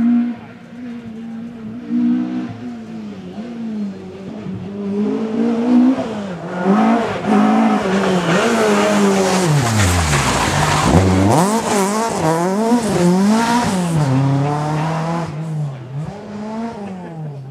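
Stage rally car at full pace, engine revs rising and falling quickly with gear changes and lifts. It grows louder as it approaches, is loudest from about six to fifteen seconds in with a deep sweep in pitch as it passes around ten seconds, then fades.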